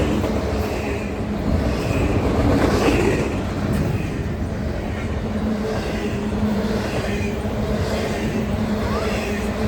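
BNSF freight train rolling past close by: a steady rumble of wheels on rail with a low, even hum underneath.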